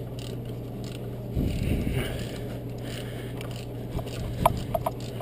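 Metal hand tools working on engine bay bolts: a louder stretch of mechanical rattling about a second and a half in, then a few light metallic clinks near the end, over a steady low hum.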